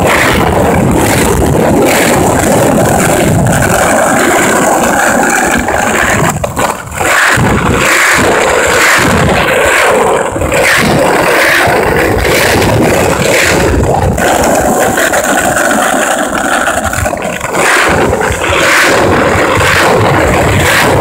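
Wheels rolling over rough, cracked, grit-strewn asphalt: a loud, constant scraping with rattle and clatter, easing briefly about six and a half seconds in.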